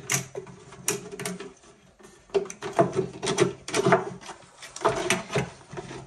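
Irregular knocks, clicks and scraping from handling a tabletop water fountain as its pump and light leads are pushed inside it and the unit is turned round on the table. The strikes are densest from about two to four seconds in and again near the end.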